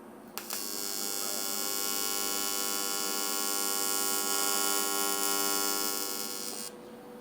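AC TIG welding arc buzzing steadily while tacking 1/4-inch aluminum, from a Miller Dynasty 210 at 120 amps with 100 Hz AC frequency and straight argon shielding gas. The buzz starts abruptly about half a second in and cuts off about half a second before the end, when the arc is broken.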